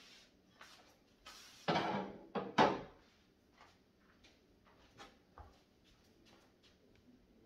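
Household objects being handled and moved: scattered light clicks and knocks, with a louder scraping rustle about two seconds in that ends in two sharper knocks.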